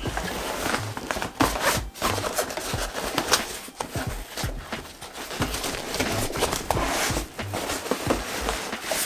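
Stiff sailcloth fabric rustling and crinkling in irregular bursts, with small clicks, as a bag and its webbing strap are pushed and shifted under a sewing machine.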